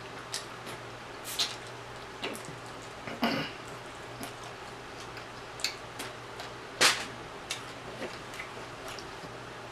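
Close-miked mouth sounds of a person eating rotisserie chicken by hand: scattered wet smacks and clicks of chewing and finger-licking, the sharpest about seven seconds in.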